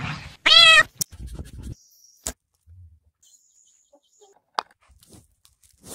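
One short, loud, high-pitched animal cry about half a second in, followed by a few faint clicks and knocks.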